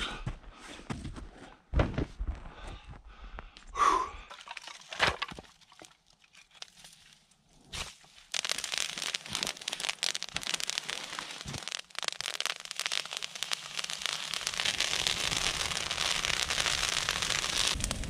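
A few scattered knocks and thumps. Then, about eight seconds in, a fire of evergreen boughs and dead wood starts crackling fast and densely, growing stronger toward the end.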